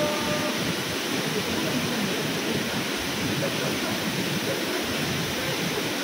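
Waterfall: a steady rush of falling water plunging into a pool, with a short pitched call right at the start.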